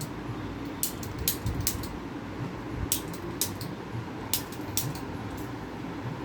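A series of about eight short, sharp, light clicks at uneven intervals over a steady low hum.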